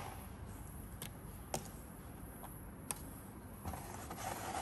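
Hands handling old intake-manifold gasket material on a cardboard-covered bench: four light clicks spread over the first three seconds, then a short rustle near the end.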